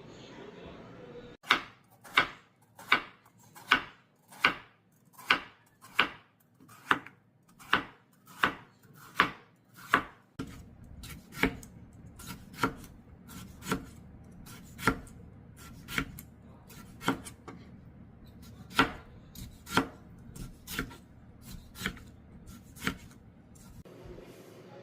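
Kitchen knife chopping on a cutting board in slow, even strokes, about four every three seconds. About ten seconds in, a low steady hum comes up and the chops go on, less even and mostly softer.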